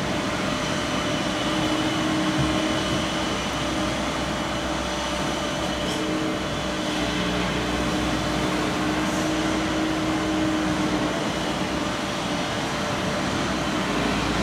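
Steady hiss and rush of noise with a faint low hum that holds through, with no sharp claps or bangs.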